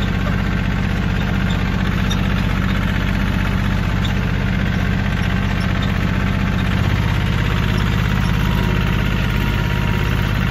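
Small John Deere tractor's engine running steadily as the tractor drives along, heard from the seat.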